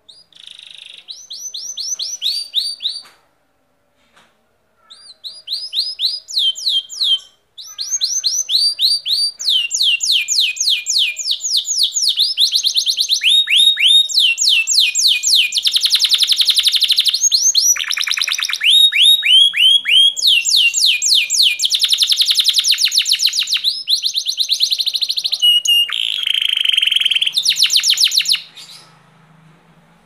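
Domestic canary singing: rapid runs of repeated falling notes and fast trills. Two short phrases with a pause between them, then one long unbroken song of about twenty seconds that stops near the end.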